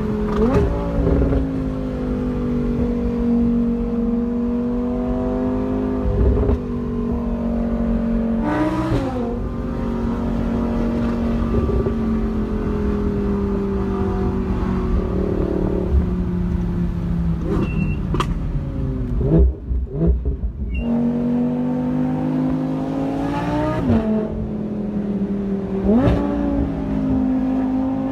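V10 supercar engine driving at a steady cruise, its drone rising and falling with the throttle, with several quick jumps in pitch as the gears change. About two-thirds of the way through there is a brief break with a few thumps.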